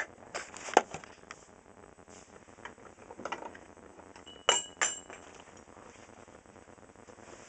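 A few light clinks and knocks of small metal parts and tools handled on a workbench. The two sharpest come about a third of a second apart, past the middle, and the first rings briefly.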